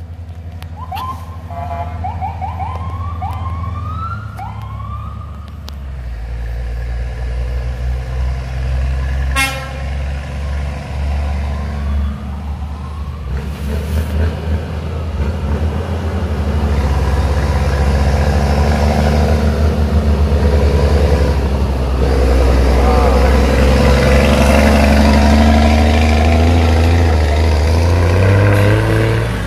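A police escort car's siren gives a few rising sweeps in the first seconds. Then a Scania truck's diesel engine grows louder as it hauls a heavily loaded lowbed trailer up the steep bend, straining and running loudest in the second half as it passes close.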